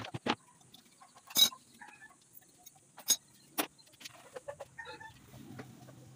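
Chickens clucking now and then, amid a few sharp clicks and knocks, the loudest about a second and a half in.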